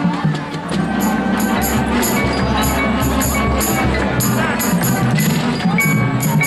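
Marching band playing, with the front ensemble's marimbas and other mallet percussion over sustained low notes. A quick pattern of crisp high strokes runs through it from about a second in.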